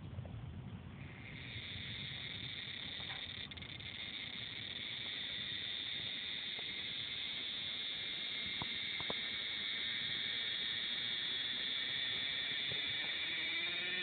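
A cicada singing at close range: a steady, high-pitched buzzing song that starts about a second in and slowly grows louder. Near the end it turns more tonal and siren-like.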